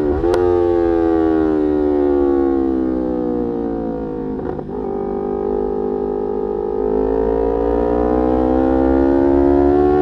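Yamaha R3's 321 cc parallel-twin engine through an Arrow aftermarket exhaust, heard from the saddle while riding. The engine pitch jumps up just after the start, as on a downshift, sinks for several seconds as the bike slows, breaks briefly around four and a half seconds, then climbs steadily as it accelerates near the end.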